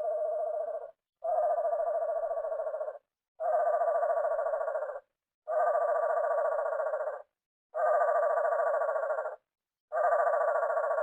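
Reconstructed dinosaur call built from songbird recordings: a rapidly pulsing call about a second and a half long, repeated about every two seconds, six times in a steady series.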